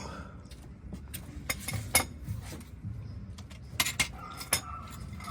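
Metal hand tools clinking and tapping against one another: a scattering of sharp, separate clinks, bunched together about a second and a half in and again about four seconds in.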